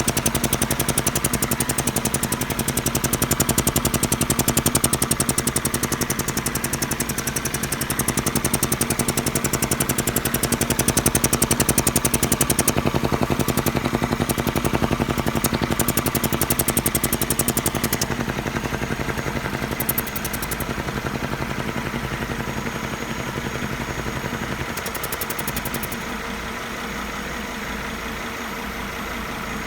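Volvo XC70 2.5T's turbocharged five-cylinder engine idling with a steady, rapid pulse. The sound gets quieter about two thirds of the way through and again near the end.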